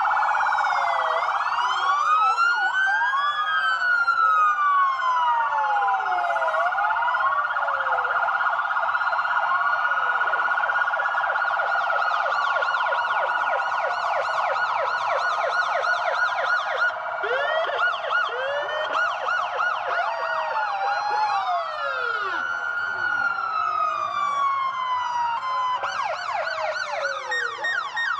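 Several emergency-vehicle sirens sounding at once. Slow wails rise and fall, and stretches of rapid yelping come in about midway and again later, over a steady held tone.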